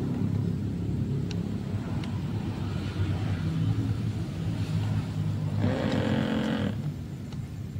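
RC model fireboat running with a steady low rumble, and a single horn blast about a second long near six seconds in.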